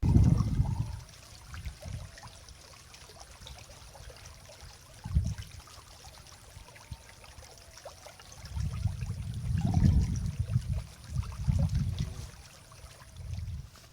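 Water trickling and running steadily at a stream's edge, broken by bursts of low rumble: one about a second long at the start, a short one about five seconds in, and a longer stretch from about eight to twelve seconds in.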